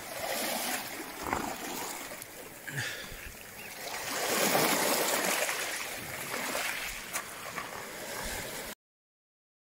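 Shallow seawater washing and gurgling over stones and shingle at the water's edge, swelling louder about halfway through, then cutting off abruptly near the end.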